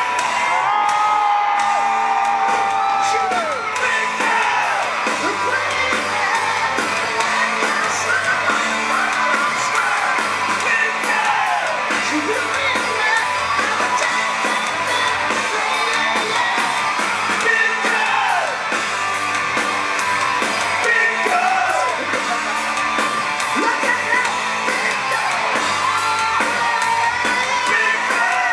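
Hard rock band playing live through a concert PA: distorted electric guitars, bass and drums under a male lead singer, heard from within the crowd in a large hall. A long held sung note at the start falls away about three seconds in.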